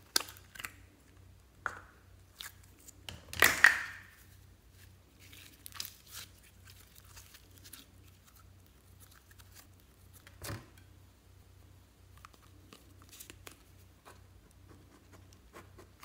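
A plastic slime container being opened by hand and the slime inside pulled out. A sharp click of the plastic at the start, then a loud ripping, peeling sound lasting about a second around three and a half seconds in, a softer thud about ten seconds in, and scattered small clicks.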